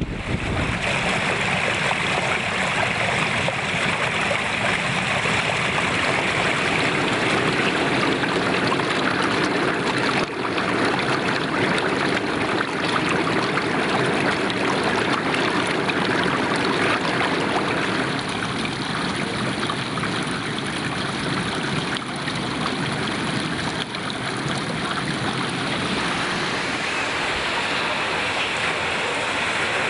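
Water rushing steadily down a mill's millrace channel toward its water wheel.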